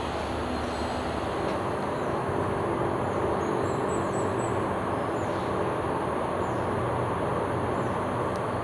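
Steady outdoor rumble of a passing vehicle, most likely a train, easing off near the end, with a few faint short bird chirps in the middle.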